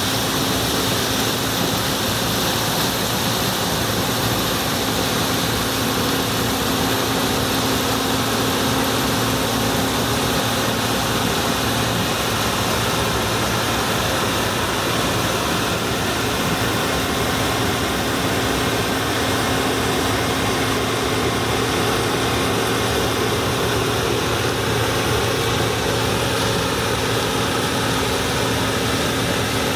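Allis-Chalmers Gleaner F2 combine running steadily while harvesting corn: an even, unbroken machine drone.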